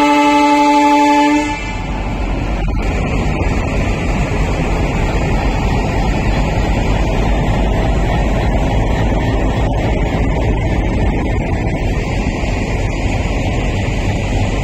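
A train horn sounds as one steady tone and cuts off suddenly about a second and a half in. Then comes the steady low rumble of a train running.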